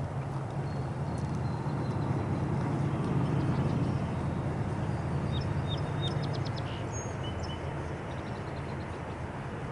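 Low, steady rumble of approaching diesel locomotives working hard up a grade, swelling slightly partway through. Birds chirp several times in the second half.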